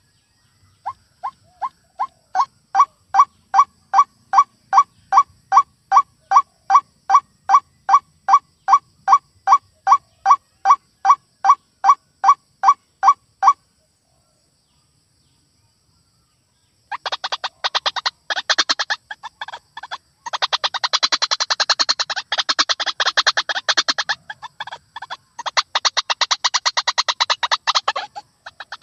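White-breasted waterhen calls: a long run of repeated single notes, about two to three a second, growing louder over the first seconds and stopping about 13 seconds in. After a pause of about three seconds, a harsher, rapid chattering chorus of calls follows.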